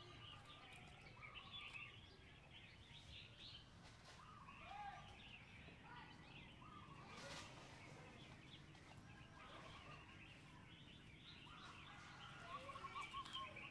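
Quiet outdoor background with faint bird chirps and calls scattered throughout.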